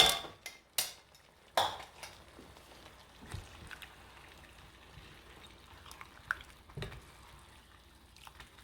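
Pineapple chunks dropped into a pan of sweet and sour sauce and chicken: three loud splashing knocks in the first two seconds, then the sauce sizzling quietly while it is stirred, with a few light clicks of the spoon against the pan.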